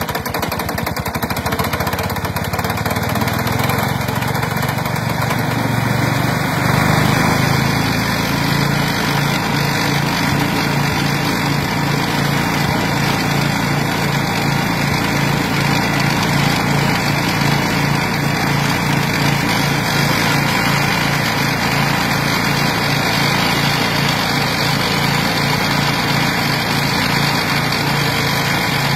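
Flail mower with a chopping shaft, its engine running. The engine speeds up over the first several seconds, then holds a steady, even pitch.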